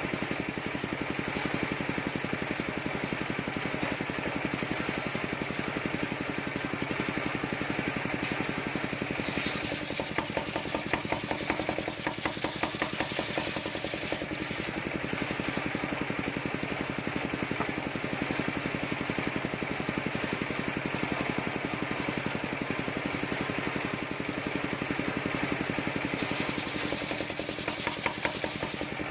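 Engine-driven homemade circular sawmill running steadily while its large blade rips teak lengthwise. The cutting noise rises twice, with rapid ticking: once about ten seconds in and again near the end.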